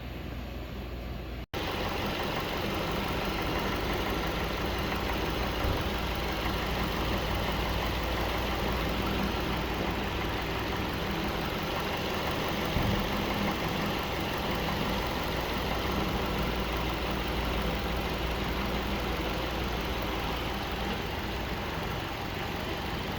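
Car engine idling steadily. After a brief cut about a second and a half in, the running sound comes back louder and holds even.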